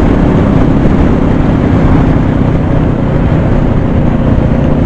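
Motorcycle cruising steadily at road speed: a steady engine hum under heavy wind rush on the action camera's microphone.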